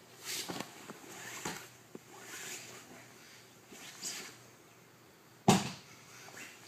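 Cloth rustling and bodies shifting on a dojo mat as aikido practitioners in heavy training uniforms work through a pin, with one sharp thump on the mat about five and a half seconds in.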